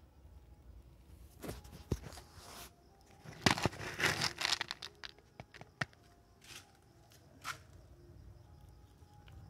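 Close rustling and crinkling with scattered sharp clicks and knocks, loudest for a couple of seconds in the middle.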